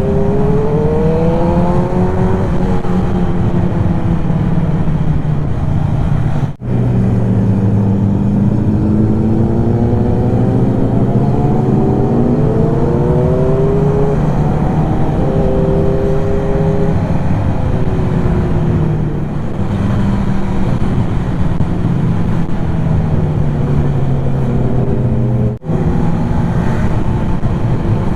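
Motorcycle engine on a fast ride, pitch rising under acceleration and dropping back again and again as the rider shifts up through the gears, over a heavy rush of wind noise. The sound cuts out very briefly twice.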